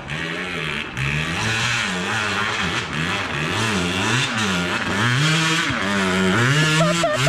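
Two-stroke KTM EXC dirt bike engine being ridden, its pitch rising and falling again and again as the throttle is worked.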